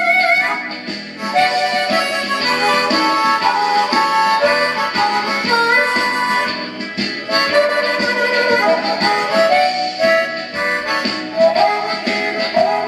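Blues harmonica played with the harp cupped against a microphone, amplified, over a backing track with a steady beat.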